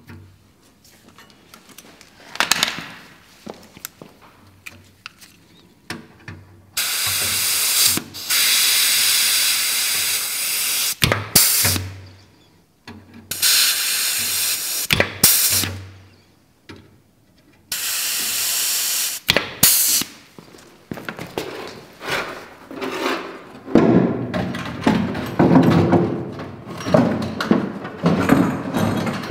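Pneumatic rivet squeezer hissing with compressed air in three long bursts of a few seconds each, each ending with a sharp click. Near the end, irregular knocking and scraping as the aircraft's bottom cowling is handled and fitted.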